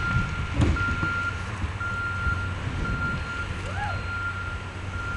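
Vehicle reversing alarm sounding a steady high tone in long beeps with short gaps, over a steady low engine rumble. A brief rising-and-falling call cuts in near the end.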